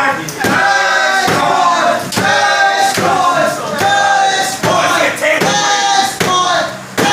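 A group of voices chanting loudly in a steady rhythm, short phrases repeating about once a second.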